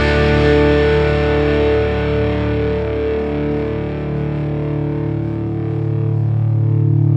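Punk rock song: distorted electric guitar and bass hold sustained chords that ring out, with no clear drum hits, the bright upper edge of the sound slowly fading.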